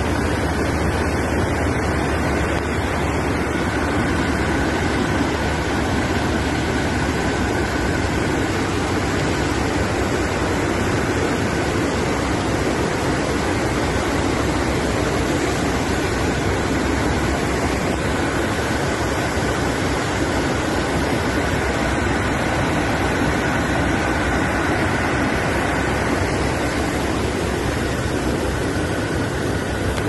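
Floodwater and rain making a steady, loud rushing noise, with a low rumble underneath.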